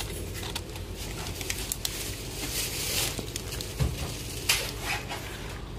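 Shop background: a steady low hum with scattered small clicks and rustles, a louder rustle about two and a half seconds in, and a couple of sharp knocks near the four-second mark.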